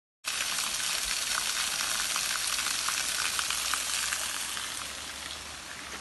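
Small waterfall, thin streams of water falling down a rock face and splashing onto stones: a steady hissing spatter with fine crackling splashes, growing fainter near the end.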